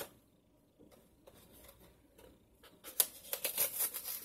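Cardboard food box being torn open by hand: a few faint taps at first, then from about three seconds in a tearing sound followed by rustling and crinkling of the box and its contents.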